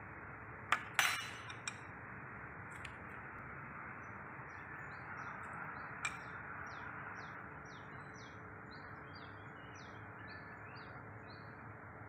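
A few sharp metallic clinks in the first two seconds and one more about six seconds in: a screwdriver knocking against metal on the Mazda LF engine's cylinder head. Through the middle and later part a bird chirps about twice a second in short falling notes, over a steady background hiss.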